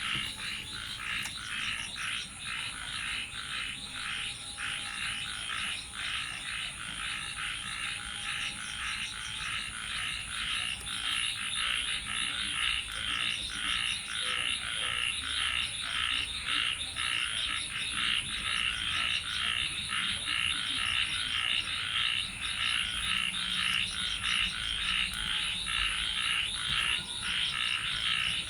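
A dense chorus of frogs calling, a continuous rapid pulsing din, with a steady high-pitched trill running above it.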